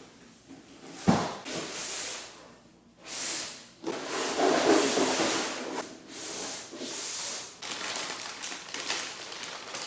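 Handling of a flat-pack bookshelf and its packaging: a sharp knock about a second in, then stretches of rustling and scraping.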